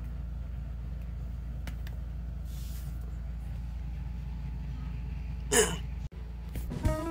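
A steady low hum, then about five and a half seconds in a short, loud, breathy burst of a person's voice. Just after it the sound cuts out for a moment, and music with plucked notes begins near the end.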